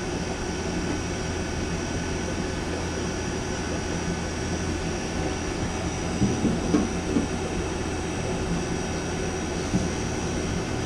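Refrigeration vacuum pump running steadily, evacuating a compressor circuit, with a low hum. A few faint knocks come about six to seven seconds in.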